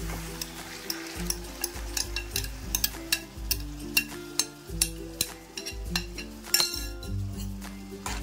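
Yogurt-marinated chicken sizzling as it is scraped into a hot pan of oil and ghee, with many sharp clicks and scrapes of a spoon against the glass bowl and the non-stick kadai. Soft background music with held low notes plays underneath.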